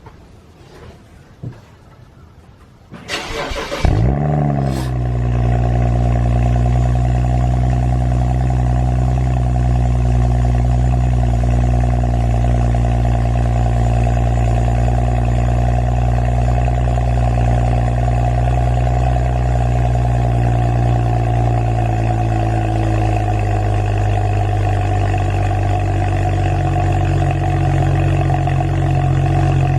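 A few faint clicks, then an engine cranks briefly about three seconds in, catches and settles into a steady idle. The idle drops slightly in pitch a little after the twentieth second.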